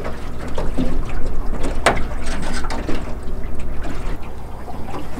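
Small waves lapping and splashing against the hull of an aluminum jon boat, with a steady low rumble underneath and one sharp knock about two seconds in.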